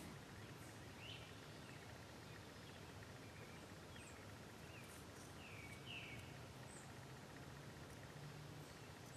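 Near silence, with a few faint, short bird chirps scattered through it.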